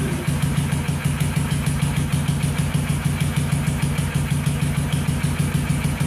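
Kawasaki quad (ATV) engine running at a steady idle with an even, rapid pulsing beat; the machine that would not start is now running.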